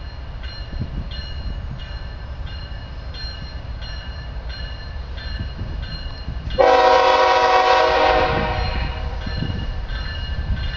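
Grade-crossing warning bell ringing steadily, about one and a half strikes a second, over the low rumble of an approaching CSX stack train. About six and a half seconds in, the lead diesel locomotive blows its air horn in one long chord that lasts about two seconds and then fades.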